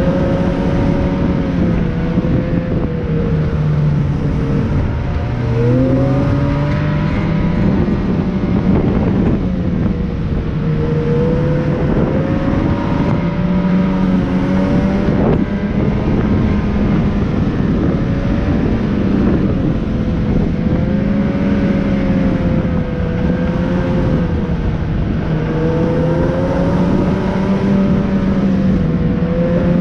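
Motor vehicle engine running steadily under varying throttle, its pitch rising and falling gently over a constant rush of wind and road noise.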